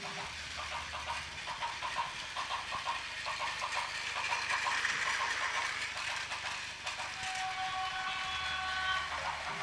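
Battery-powered Plarail toy train running on plastic track, with a steady rhythmic clicking and a hiss that swells in the middle. Near the end, a steady tone at several pitches sounds for about two seconds.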